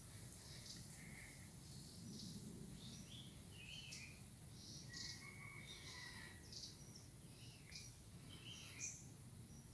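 Wild birds chirping in short, scattered calls, a few of them brief gliding notes, over a faint steady background hum.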